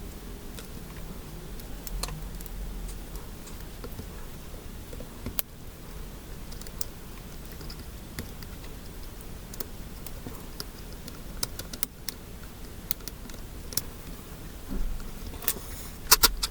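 Scattered light clicks and taps from handling a laptop, irregular rather than steady typing, with a quick run of sharper clicks near the end.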